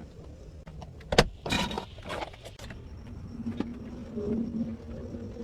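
A sharp click about a second in, then a short rustle and a few smaller clicks over a low steady rumble, with a faint low hum coming in later.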